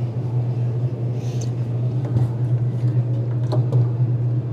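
A steady low hum from a running machine, with a few faint clicks about two and three and a half seconds in.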